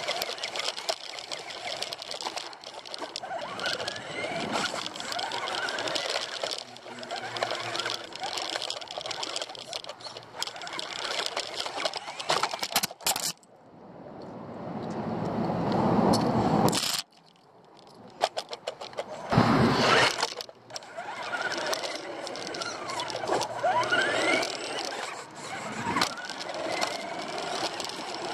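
RC buggy running, heard from a camera mounted on the car: motor whine rising and falling in pitch with the throttle, together with rattling drivetrain and tyre noise. About halfway through the sound drops out briefly, then rises steadily and cuts off suddenly, with a loud burst a couple of seconds later while the car tumbles.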